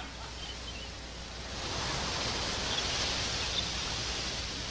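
Steady hiss-like noise that swells about a second and a half in and eases slightly near the end.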